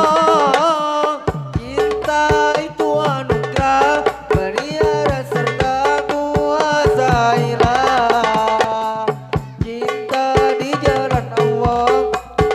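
Hadrah music: hand-struck frame drums (rebana) playing a busy rhythm with deep bass strokes, under a sustained, wavering melody.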